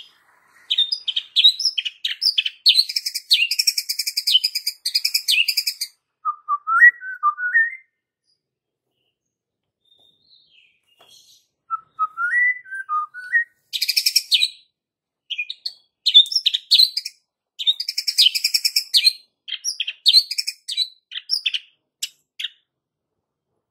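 White-rumped shama singing in phrases of rapid, sharp, high trills and chatter mixed with lower whistled warbles. It breaks off for a few seconds in the middle, then starts again.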